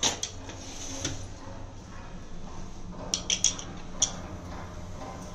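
Light clicks and clinks of kitchen utensils and cookware being handled: one at the start and a quick cluster of three or four about three to four seconds in, over a steady low hum.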